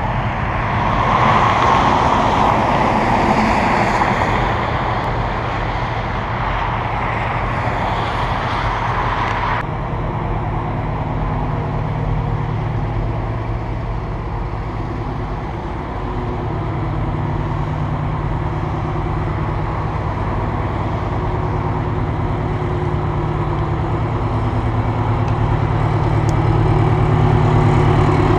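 The diesel engine of a 1968 Silver Eagle bus running low and steady as the bus rolls slowly. A rushing wind and road noise covers it at first and cuts off suddenly about ten seconds in.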